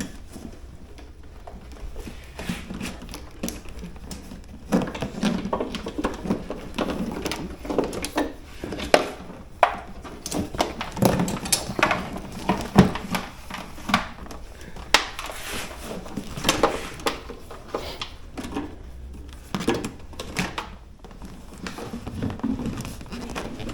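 Irregular clicks, taps and knocks of small parts and tools being handled, as a USB outlet mount is fitted to a motorcycle.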